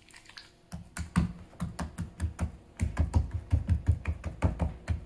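Fingers patting whipping cream onto the tops of raw biscuit dough in a metal baking pan: a quick, uneven run of soft pats and taps, starting about a second in.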